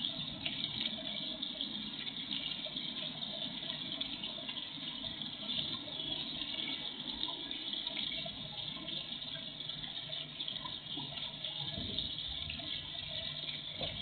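Small garden-pond fountain splashing steadily, a continuous watery hiss.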